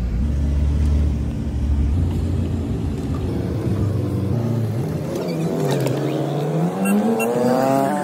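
Road vehicle engine: a low steady drone, then from about halfway an engine accelerating, its pitch climbing, dropping sharply at a gear change and climbing again.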